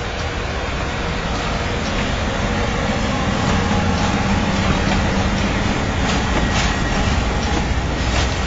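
A train rolling past close by behind an electric locomotive: a steady rumble of steel wheels on the rails that grows a little louder, with repeated wheel clacks over rail joints in the second half.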